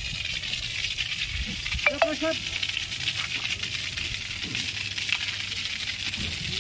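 Fire hose nozzle spraying a steady hissing jet of water, with a brief voice about two seconds in.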